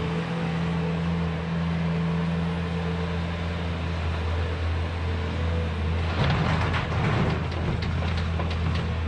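Diesel engines running steadily: a Bobcat skid-steer loader working beside a dump truck. About six seconds in comes a rattling clatter lasting a second or so, rubble tipped from the loader's bucket into the truck bed.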